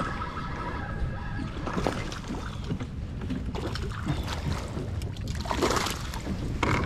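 Spinning reel being cranked with a light whine as a fish is reeled to the kayak, then water splashing as the fish thrashes into a landing net about five and a half seconds in. Low wind rumble on the microphone throughout.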